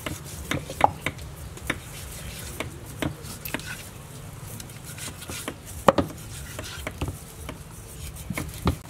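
Knife working meat off a raw cow leg on a chopping board, with irregular knocks of the blade against the board. Two sharper knocks come about a second in and just before six seconds, and a few more near the end.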